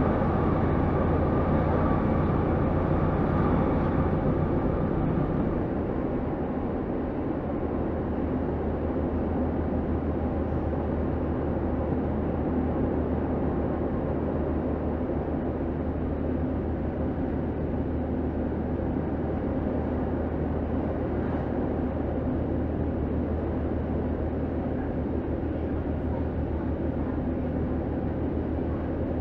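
Steady running noise heard inside a diesel passenger train under way: a low engine drone mixed with the rumble of wheels on rail. It is a little louder for the first five seconds or so, then settles.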